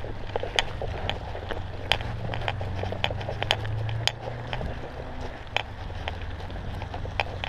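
Mountain bike rolling over a dirt path covered in dry leaves: the knobby tyres make a low hum that fades a little after about four seconds, and the bike gives irregular sharp clicks and rattles over the bumps.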